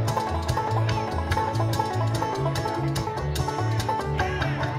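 Bluegrass string band playing an instrumental break: picked banjo over acoustic guitar and upright bass notes on a steady beat, with no singing.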